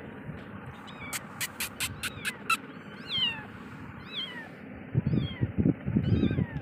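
Very young kittens mewing: thin, high calls that fall in pitch, several in the second half. Just before them comes a quick run of about six sharp clicks, and near the end loud rustling and bumps.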